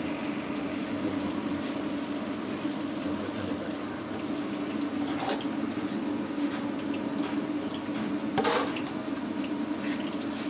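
Gram-flour pakora batter frying in a wok of hot oil: a steady sizzle with scattered crackles, and one louder crack about eight seconds in.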